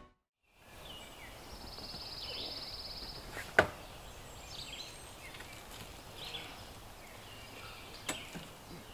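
Quiet forest ambience with scattered high bird chirps and a high, rapid trill early on. A single sharp knock about three and a half seconds in, and a smaller click near the end.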